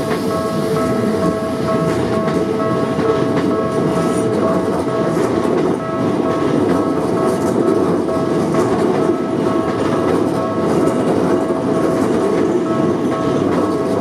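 Electric commuter train passing over a level crossing: a loud, steady rumble of wheels on rail, with scattered clicks as the wheels cross rail joints and a set of steady high tones held over it.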